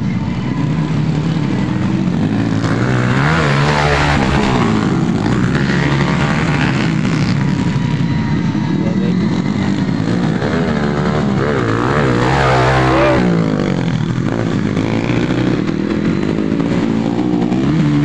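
Motocross motorcycles racing on a dirt track, engines revving, the pitch climbing and dropping again and again as they accelerate and shift; loudest about a fifth of the way in and again around two-thirds.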